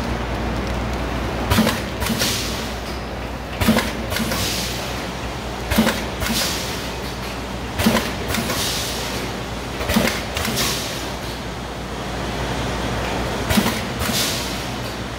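Automatic vertical pouch packing machine running through its cycle over a steady motor hum. About every two seconds there is a sharp knock as the jaws seal and cut a pouch, followed by a short hiss of air from its pneumatic lines.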